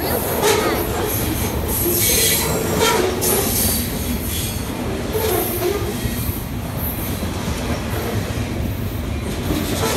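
Freight cars rolling past at close range: a steady rumble of steel wheels on the rails, with high-pitched wheel squeal swelling at times, loudest about two to three seconds in.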